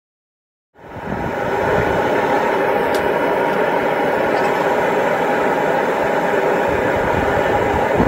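Propane melting furnace's burner running with a loud, steady roar. It cuts in abruptly about a second in, after silence.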